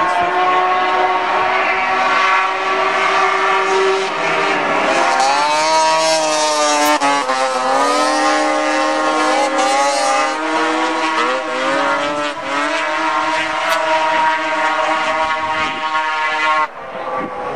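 Racing snowmobiles' two-stroke engines running hard around an oval track, several engine notes overlapping, their pitch rising and falling as the sleds pass and work through a turn. The sound cuts off abruptly near the end.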